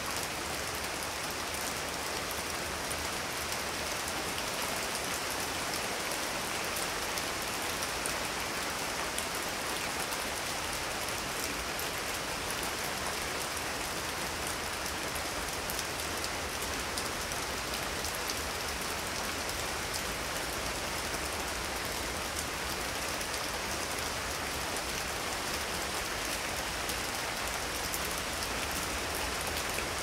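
Steady thunderstorm rain falling: a dense, even hiss with fine scattered drop ticks, holding at one level throughout.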